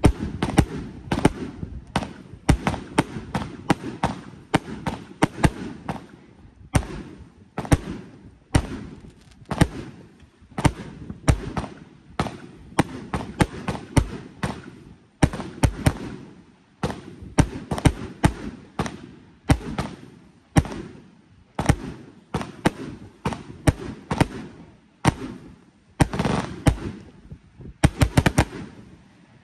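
Black Scorpion 1.4G consumer firework cake firing a steady run of shots, each launch thump followed by the pops of its aerial break, roughly one to two a second. The shots stop just before the end.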